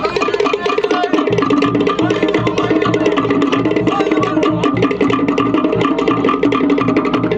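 Fast Cook Islands drumming: wooden slit log drums struck in a rapid, driving rhythm over a deeper drum beat.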